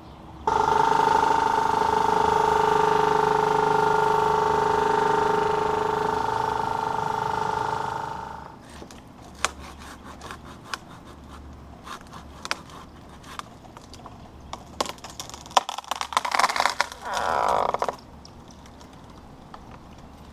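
Aerial man lift's hydraulic drive running with a steady whine for about eight seconds as the bucket is positioned, then stopping. After it, scattered clicks and rustles of leafy branches being handled, with a short rasping burst of hand-sawing near the end.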